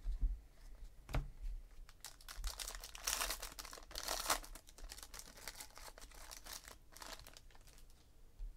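Foil wrapper of a 2017 Panini Contenders Draft Picks football card pack crinkling loudly as it is torn open, about three to four and a half seconds in. Around it come light clicks and rustles of trading cards being handled.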